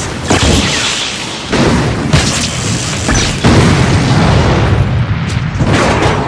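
Series of booming explosion sound effects, about five heavy blasts in quick succession with rumbling between them, over a dramatic music score.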